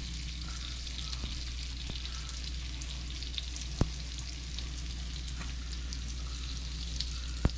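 Flour-dredged crappie fillets sizzling in hot olive oil and butter in a pan, a steady shallow-fry sizzle with fine crackles. Two sharp ticks come through, one near the middle and one near the end.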